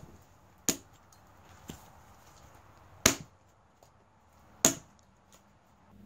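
Klax Lumberjack multi-tool axe head chopping. Three sharp strikes, with a fainter knock between the first two.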